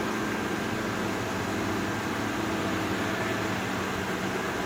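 GE Profile air conditioner's fans running steadily on high with no compressor running: the unit powers up but the compressor does not start, so it still has a fault.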